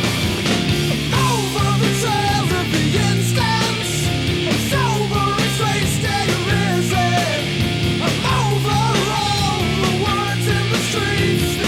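Loud punk/hard rock soundtrack music: distorted band with drums and a melodic lead line, possibly vocals.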